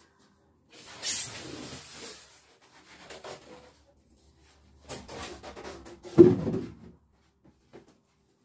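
Packaging being handled and pulled out of a large cardboard box: paper and cardboard rustling and scraping in several bursts, with a dull thump just after six seconds in.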